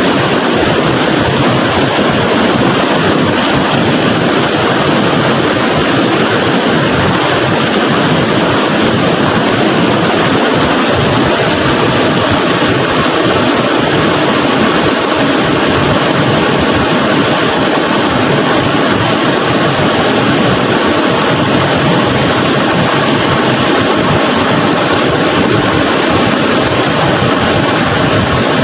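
Floodwater rushing down a swollen river: a loud, steady rush of water.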